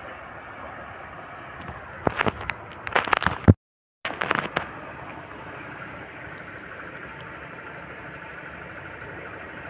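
Steady rush of flowing river water. About two seconds in, a cluster of sharp crackling knocks lasts about a second and a half as the float rig is cast. The sound drops out completely for half a second, then a few more knocks follow.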